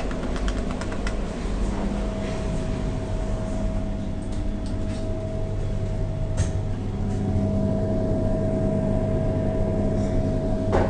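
Thyssen inclined elevator running: a steady mechanical hum with a held whine that sets in about two seconds in, and sharp clicks near the start.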